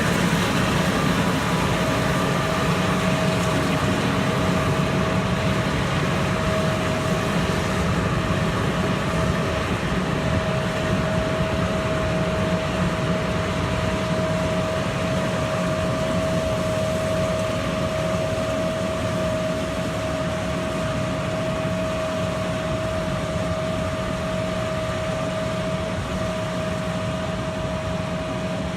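Combine harvester running steadily while cutting soybeans: an even engine and machinery drone with a steady high whine over it, slowly growing a little fainter.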